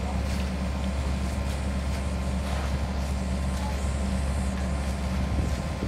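Kobelco SK50 excavator's diesel engine running steadily at a constant speed.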